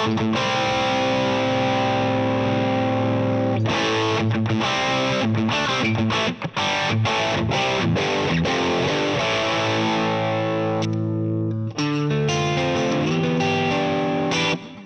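Electric guitar played through a Fractal Axe-Fx III modelling a Marshall Plexi 50W 6CA7 amp: crunchy, moderately distorted chords ringing out, with the gain set just below full drive. The playing breaks off briefly twice, about six and twelve seconds in.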